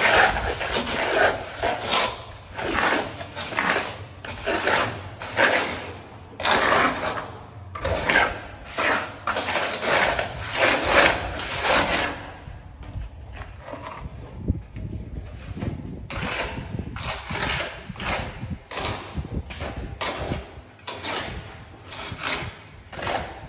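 Rough scraping strokes from hand-tool work, repeated about once or twice a second, with a quieter pause about midway.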